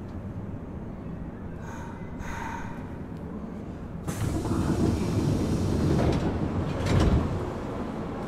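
Nagoya Municipal Subway 3000 series chopper-controlled train running, heard from inside the car: a steady rumble of wheels on rail with a brief faint whine about two seconds in. About four seconds in the running noise suddenly grows louder, with a heavy thump near seven seconds.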